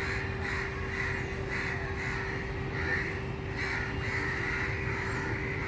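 Crows cawing repeatedly, one call after another, over a faint steady hum.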